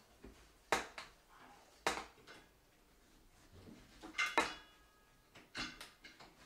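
Sharp metal clicks and clinks, about eight in all, as the copper ground wire is fastened to the ground screw on a light fixture's metal mounting bracket. A pair of clinks about four seconds in rings briefly.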